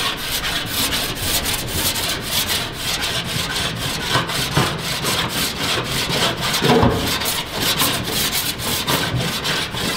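Body file rasping in quick repeated strokes over tin body solder on a repaired VW T1 door panel, shaving the soft solder down to level the repair.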